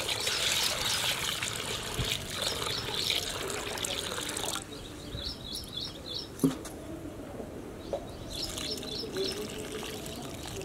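Water pouring into a glass bowl of chana dal as the lentils are rinsed by hand. The rushing water stops about four and a half seconds in, leaving quieter sloshing of the rinse water. A bird chirps in two short runs.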